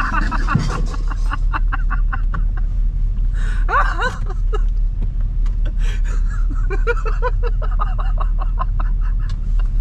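A man laughing hard in several fits of quick, breathless laughter, over the steady low hum of the van's engine running inside the cab.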